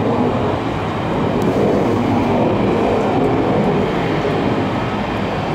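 Jet airliner noise: a steady, loud rumble that swells a little partway through.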